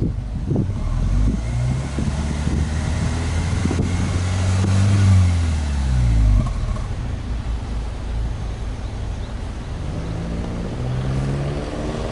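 Subaru Legacy B4 2.5GT's EJ25 turbocharged flat-four engine being free-revved with the car standing still: the revs climb over about five seconds, drop back to idle when the throttle is released about six seconds in, and rise again near the end, heard at the twin tailpipes.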